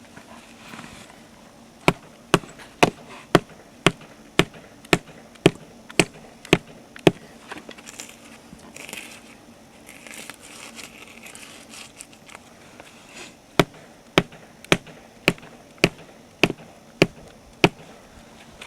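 Steady hammer blows, about two a second, driving a stainless steel glue-in bolt into a resin-capsule-filled drill hole in rock: a run of about eleven strikes, a pause of several seconds, then about eight more.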